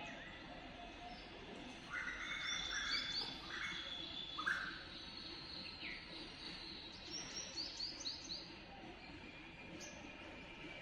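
Birds calling and chirping over a steady background hiss, with a cluster of calls about two to four seconds in and a quick run of short, high repeated chirps around seven to eight seconds in.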